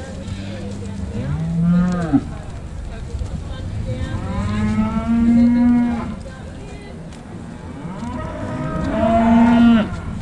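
Young beef cattle mooing three times: a short call about a second and a half in, a longer drawn-out call in the middle, and another near the end.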